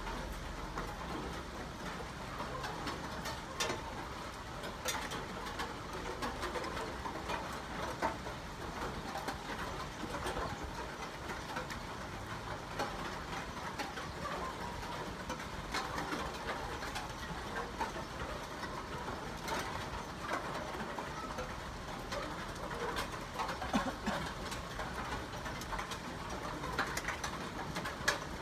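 Steady rain with scattered sharp drops and drips, and a bird calling over it.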